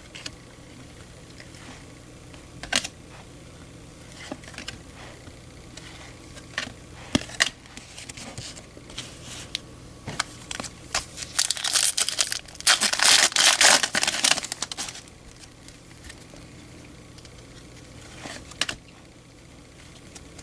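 A Topps baseball card pack's foil wrapper being torn open and crinkled: a rough tearing rustle lasting a few seconds, about two-thirds of the way through. Before it come scattered clicks and taps of the cards being handled.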